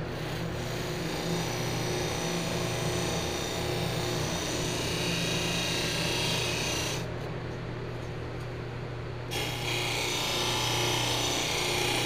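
Electric bench buffer running with a soft buffing wheel, polishing a strip of stainless steel trim: a steady motor hum under a hissing rub while the trim is held against the wheel. The rub breaks off for about two seconds some seven seconds in, leaving only the hum, then starts again.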